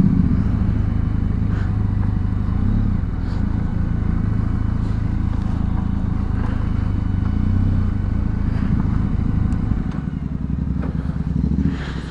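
Benelli TRK 502X motorcycle's parallel-twin engine running steadily as a low rumble, which drops in level about ten seconds in.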